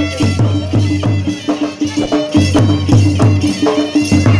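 Traditional folk music with a quick, steady drum beat and a melody over it.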